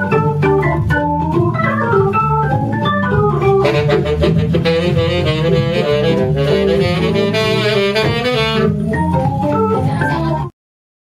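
Live jazz band playing, a busy run of melody over a steady bass line, cutting off abruptly near the end.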